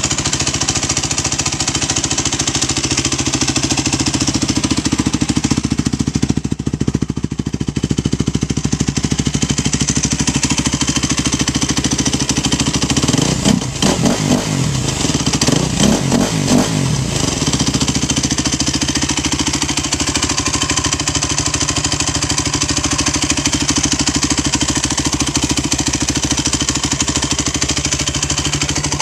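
2002 Yamaha YZ426F's four-stroke single idling with a steady mechanical rattle, blipped a few times about halfway through. A new cam chain tensioner has not cured the rattle, and the owner has been told a worn woodruff (crankshaft) key can make this sound.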